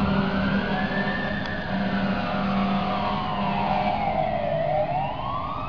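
Fire truck siren on a slow wail, its pitch rising, sliding slowly down, then climbing again near the end, and fading slightly as the truck pulls away.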